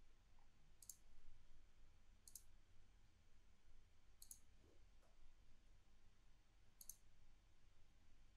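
Four faint computer mouse clicks, spaced a second or two apart, over near silence.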